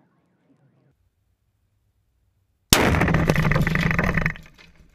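Fireworks exploding: a sudden loud blast about two and a half seconds in, lasting about a second and a half before dying away.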